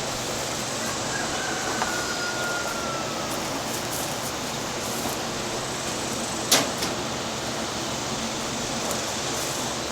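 Steady even hiss of background noise, with a faint falling whistle-like tone about a second in and a single sharp click about six and a half seconds in.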